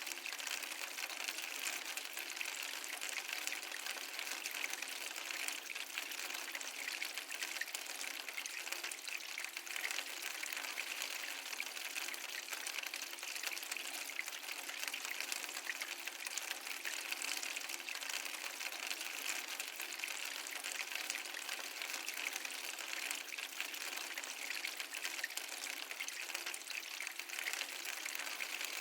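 Flowing water, a steady unbroken rush with a bright, trickling edge and no deep rumble.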